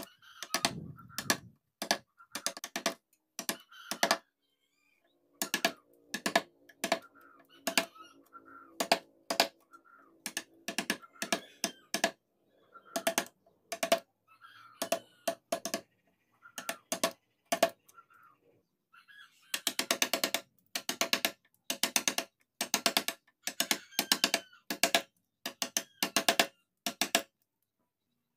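A carving chisel driven into mahogany by mallet strikes. The taps are sharp and come in short runs of about two a second, with brief pauses between runs.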